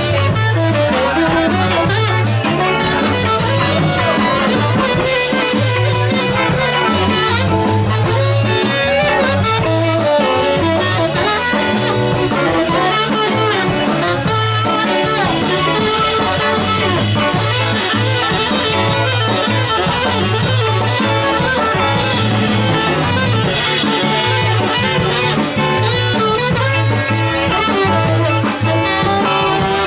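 Live band playing an instrumental passage at a steady, loud level: tenor saxophone playing the lead line over electric guitar, electric bass and a drum kit, with no singing.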